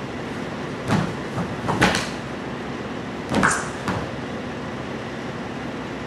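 A few soft thumps and scuffs of a bare-skinned body shifting and sliding on a wooden floor, clustered in the first four seconds, over a steady hiss of room noise.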